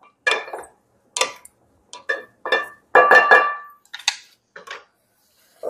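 Wooden salad spoons knocking and scraping against a glass bowl as a salad is tossed: a series of separate clinks and knocks, several with a short glassy ring, the loudest about three seconds in.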